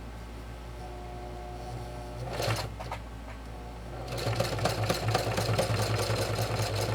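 Electric sewing machine stitching through heavy curtain fabric: a brief run of rapid needle strokes about two seconds in, then steady fast stitching from about four seconds on, over the machine's constant low hum.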